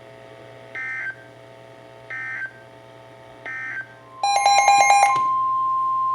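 Emergency Alert System data tones ending one alert: three short squawky end-of-message bursts about a second and a half apart. About 4 s in, a brief burst of warbling data tones starts the next alert, followed by the steady single-pitch warning alarm tone.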